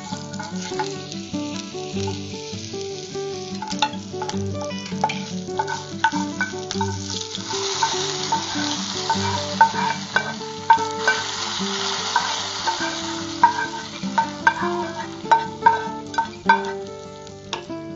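Spices and green chillies frying in hot oil sizzle as a wooden spoon stirs them and scrapes the tempering out of a small metal pan into the simmering curry. The sizzle swells about seven seconds in, with repeated spoon scrapes and taps on the pan.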